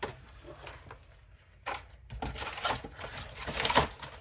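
Packaging of a Pokémon trading card box being pulled and torn off: a brief rip, then a run of tearing and crinkling from about two seconds in, loudest near the end.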